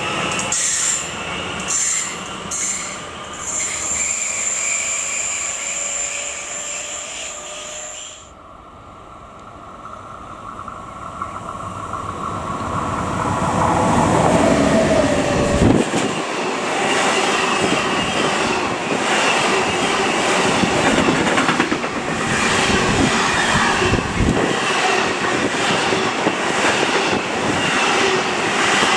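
A train passing with a high wheel squeal, cut off suddenly about eight seconds in. Then another train approaches and rushes past close by, its wheels clattering over the rail joints.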